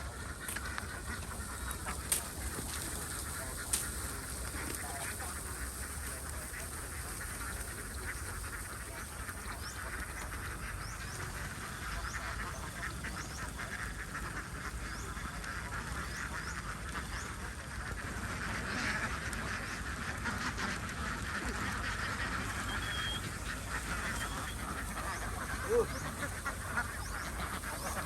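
A flock of domestic ducks quacking and chattering continuously, many birds calling over one another, with a few sharp clicks.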